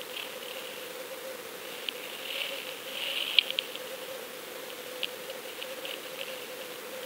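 Underwater sound picked up by a fishing camera sitting on the sandy bottom in the surf: a steady hum with scattered crackling and sharp clicks, loudest in a quick cluster a little past three seconds in.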